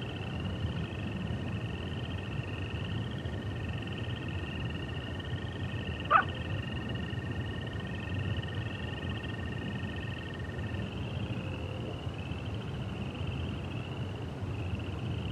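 Night nature ambience: a steady, high, pulsing chorus over a low rumble, with a thin steady tone that stops about two-thirds of the way through. A single short, loud animal call cuts through about six seconds in.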